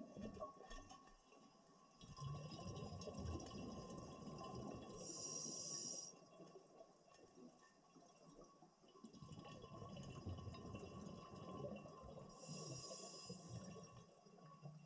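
Scuba diver breathing through a regulator underwater: faint rushes of bubbling exhalation, each ending in a short high hiss, about two breaths.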